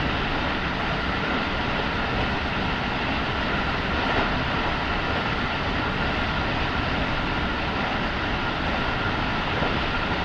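Keikyu 1000 series electric train heard from on board, running steadily: a constant rumble of wheels on rail mixed with a few steady whining tones.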